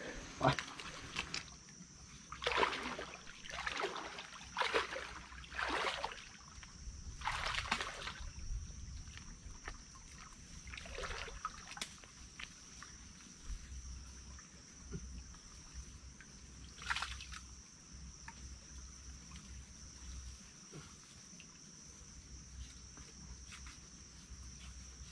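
Rustling and crunching of dry bamboo leaves and undergrowth underfoot as someone moves through a bamboo thicket: a quick run of rustles in the first eight seconds, then two more around 11 and 17 seconds. A steady high insect drone runs underneath.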